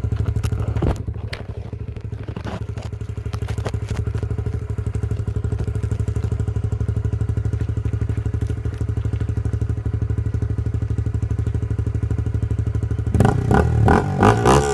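Honda RS150R's single-cylinder engine idling steadily through a GL standard-cut aftermarket exhaust, a low, rapid, even pulsing. About thirteen seconds in it is revved in short blips, the pitch rising and falling.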